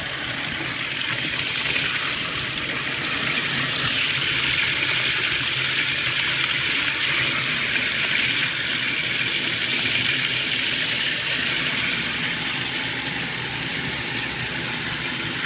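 Toilet with a custom-built tank and traditional flush parts flushing: a steady rush of water that grows louder about four seconds in and eases a little after about eleven seconds.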